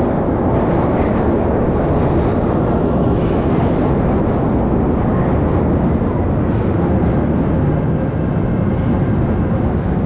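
Electric commuter train pulling in alongside the platform: a loud, steady rumble of wheels and running gear.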